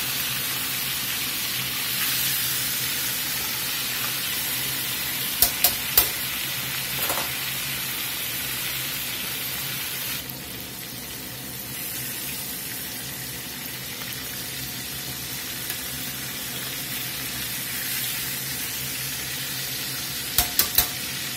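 Breaded cube steaks frying in shallow oil in a cast-iron skillet: a steady sizzle that eases slightly about ten seconds in. Metal tongs click sharply a few times while turning the steaks, twice around five to six seconds in and again near the end.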